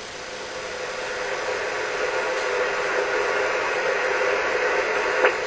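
Hiss and static from a ham radio receiver's speaker while it waits on a voice channel, slowly growing louder, with a faint steady tone underneath. A single click comes near the end.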